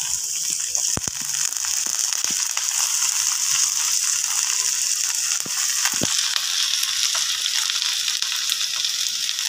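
Oil sizzling steadily in a frying pan as sliced brinjal (eggplant) pieces are dropped in on top of frying onions and garlic, with a few sharp clicks and taps, the clearest about a second in and about six seconds in.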